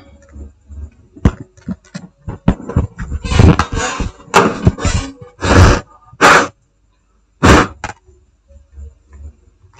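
Irregular handling noises on a repair bench: a string of short knocks and brief scraping or rustling bursts as a jumper wire on a laptop motherboard is being insulated, busiest in the middle and quieter near the end.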